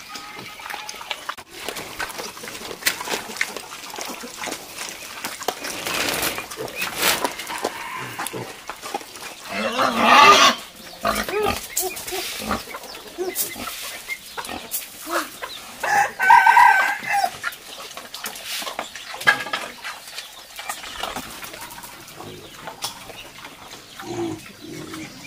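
A rooster crows twice, about ten seconds in and again about six seconds later, each call lasting about a second. Between the calls there are quieter farmyard animal noises and scattered rustling.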